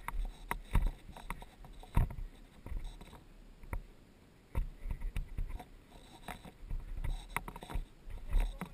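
Irregular knocks, clicks and rustles under a low rumble of wind on the microphone, with a quieter moment near the middle.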